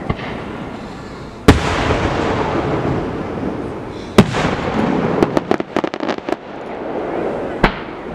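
Aerial fireworks shells bursting overhead. There are sharp booms about a second and a half in and about four seconds in, a quick run of sharp cracks between five and six seconds, and another boom near the end. Each burst is followed by a long rolling echo.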